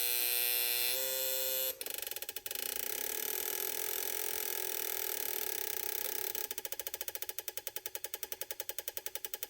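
Electronic buzz from a homemade radio signal indicator circuit on an electronic project kit. The buzz is steady and steps in pitch about a second in, drops out briefly, then resumes; after about six and a half seconds it breaks into rapid, even pulsing. The buzzing and pulsing change with the strength of the radio station the antenna picks up.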